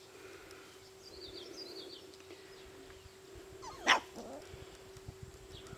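Four-week-old Siberian Husky puppies yipping, with one sharp, loud yip about four seconds in. A steady low hum runs underneath.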